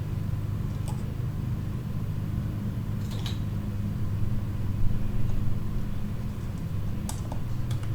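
A steady low hum with a few faint small clicks and taps about a second in, around three seconds and near the end: small tools working at the screen cable of an opened iPad.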